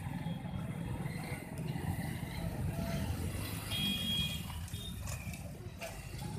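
Steady low rumble of motorcycle engines and street traffic, with a short horn beep about four seconds in.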